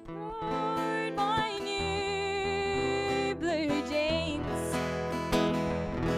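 Acoustic guitar playing a steady accompaniment, with a woman's voice holding a few long wordless notes with vibrato between sung lines.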